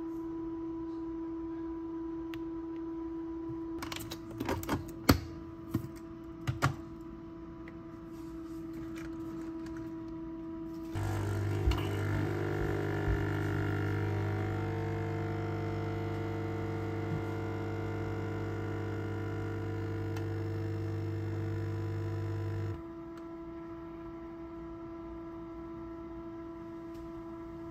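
Air fryer running with a steady hum, a few sharp clicks and knocks around five to seven seconds in, then a Nespresso capsule coffee machine's pump joining with a louder, lower hum as it brews for about twelve seconds before it stops, leaving the air fryer running alone.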